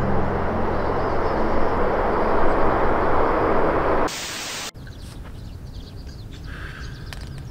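A broad, steady rushing noise of open-air ambience swells for about four seconds, then cuts off abruptly. A much quieter outdoor ambience with a few faint clicks follows.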